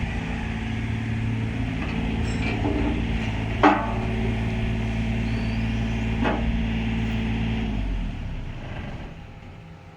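Takeuchi TB230 mini excavator's diesel engine running steadily, with two sharp knocks about three and a half and six seconds in, the first the louder. The sound fades away over the last two seconds.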